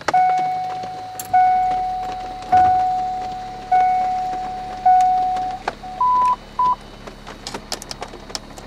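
Car dashboard warning chime ringing five times, about one strike a second, each fading away, as the ignition is switched on, then two short higher beeps. Underneath is a faint steady low hum of the ABS pump motor starting to charge the brake accumulator, and light ticking of rain on the car.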